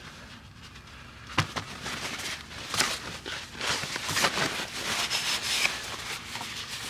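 Paper towel crinkling and rubbing as spilled engine oil is wiped off a motorcycle's side, mixed with jacket fabric brushing, after a sharp click about a second and a half in.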